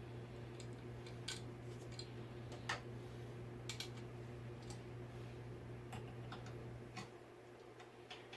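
Scattered light clicks and small taps of fan parts and hardware being handled during ceiling fan assembly, irregular, a few each second at most, over a steady low hum.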